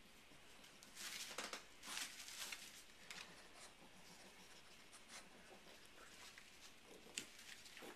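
Faint scratching and rustling from a French bulldog puppy moving about and nosing at things on the floor. There are two short bursts about a second and two seconds in, then light ticks and a single click near the end.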